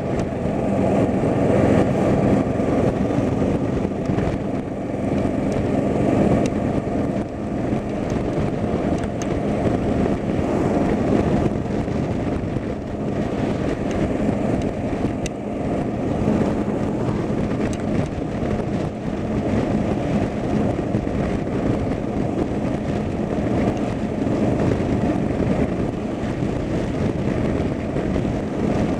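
Steady engine and road noise of a moving car, with a low, even hum and no distinct events.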